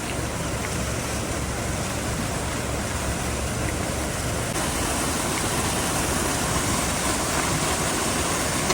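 Fast-flowing cold mountain stream, a steady rush of water that brightens a little about halfway through.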